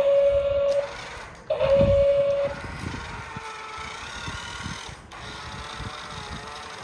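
Two steady horn-like beeps, each just under a second long, from a miniature construction vehicle, followed by a small motor whirring steadily.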